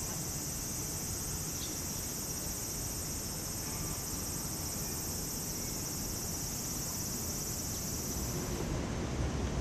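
Steady, high, dense buzzing of a cicada chorus in the trees, which cuts off abruptly near the end, over a low background rumble.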